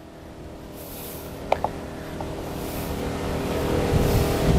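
A car's sound growing steadily louder, as of a vehicle approaching. There is a single sharp click about a second and a half in.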